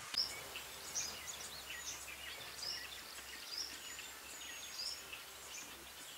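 Quiet outdoor ambience of birds chirping: many short, scattered calls and small pitch sweeps over a faint steady hiss and low hum.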